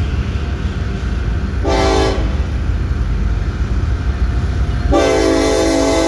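Train running with a steady low rumble while its locomotive horn sounds a short blast about two seconds in, then starts a long blast near the end.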